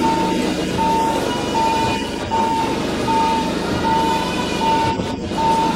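An electronic warning beeper sounding a single tone over and over, about every three-quarters of a second, over a steady low machine hum.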